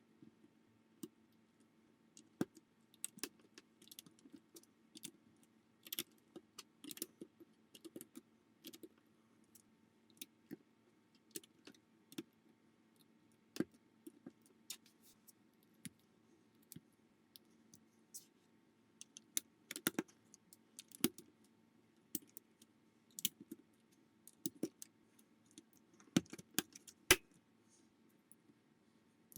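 Plastic building bricks clicking and rattling as they are handled and snapped together, in irregular sharp clicks, some in quick clusters, over a faint steady hum.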